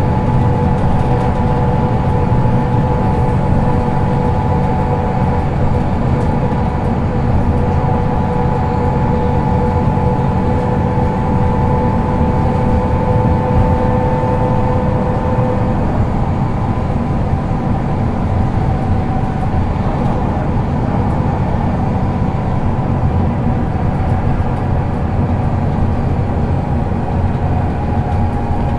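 Solaris Urbino II 18 articulated bus with a ZF Ecomat automatic gearbox, heard on board while driving: a steady engine and road drone. A whining tone runs over it and fades out about halfway through.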